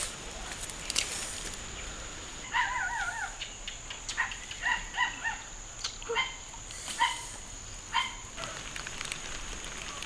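Streamside forest ambience: a steady high insect drone, with animal calls over it. The first call, about two and a half seconds in, wavers up and down. Shorter single calls follow every half second to a second until near the end.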